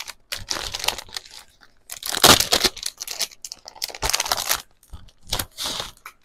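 Packaging of a pack of patterned craft paper crinkling and tearing as it is handled and opened, in four bursts of a second or so each, the loudest about two seconds in.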